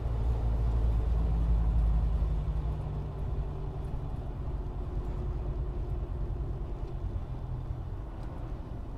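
A car driving at highway speed, heard from inside the cabin: a steady low rumble of engine and tyre noise with a faint hum, louder for the first couple of seconds and then level.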